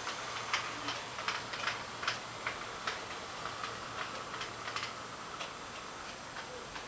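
HO scale model train running on the layout: irregular light clicks, about one or two a second, with a faint low hum that stops about five seconds in.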